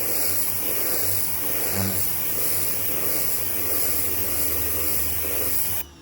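Ryobi 1600 psi electric pressure washer spraying through its turbo nozzle: the motor runs with a steady hum under the loud hiss of the water jet. Near the end the spray and motor cut off suddenly as the trigger is let go.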